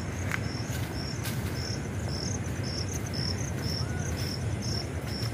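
Insect chirping in a steady rhythm, about two short high chirps a second, over a low rumble.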